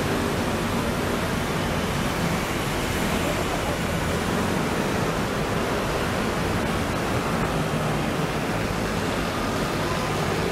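Steady, even noise of traffic on a busy city road, starting abruptly and holding level throughout.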